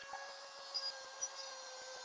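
Dremel rotary tool with a small spherical bit running at a steady whine while it grinds a groove into a boot sole, with a light rasping as the bit cuts.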